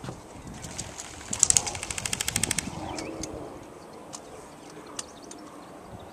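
Airsoft gun firing one rapid full-auto burst of evenly spaced shots lasting just over a second, about a second and a half in. Birds chirp faintly afterward, and a couple of single sharp clicks follow later.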